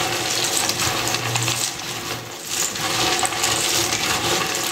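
A heap of Ashura fakia (roasted chickpeas, peanuts and small sugar candies) being stirred by hand in a large glazed clay dish: a continuous dense rattle and clatter of small hard pieces against each other and the dish.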